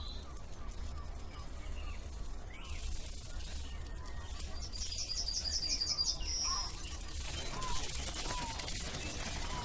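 Outdoor nature ambience: scattered faint bird chirps over a steady low rumble, with a fast, high trill lasting about two seconds around the middle.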